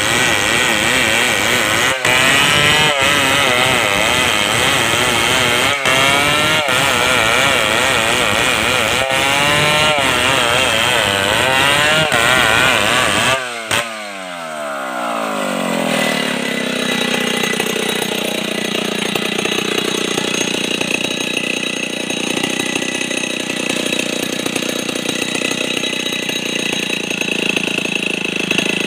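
Stihl 070 two-stroke chainsaw running at high revs, its pitch wavering up and down as if working in a cut. About 13 seconds in the revs drop away and it settles into slower, steadier running.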